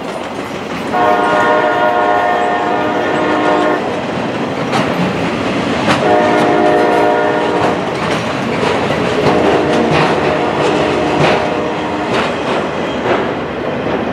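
CSX maintenance-of-way freight train rolling past, its flatcars clacking and clanking over the rail joints. The locomotive horn sounds three blasts: a long one about a second in, then two shorter ones about six and nine seconds in.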